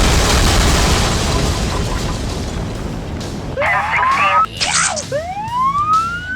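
A loud blast dies away over the first few seconds. It is followed by two rising whistle-like glides with a short burst between them, typical of added action sound effects.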